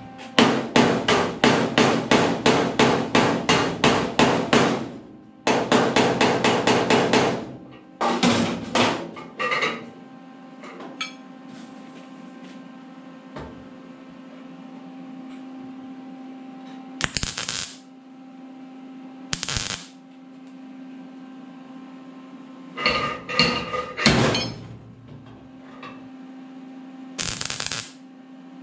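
Rapid, even hammer strikes on the truck's sheet-metal cowl, about four or five a second, in two runs over the first seven seconds, then a few scattered taps. Later come several short bursts from a welder tacking the dent puller onto the panel, the last one near the end, over a low steady hum.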